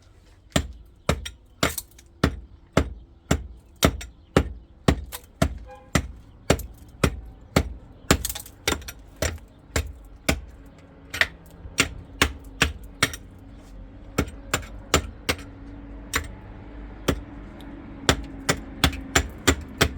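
Hand hammer striking hard material again and again at an even pace of about two sharp blows a second.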